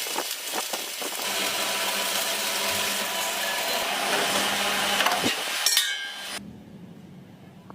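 Steel-drum metalworking in a workshop: a steady harsh noise with scattered metallic knocks and clanks, which cuts off abruptly about six and a half seconds in.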